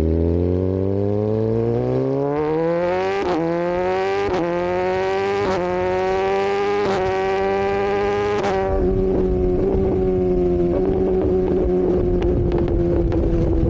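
Motorcycle engine and exhaust accelerating hard, the pitch climbing for about eight seconds with a short break at each gear change, then easing off and cruising with the pitch slowly falling.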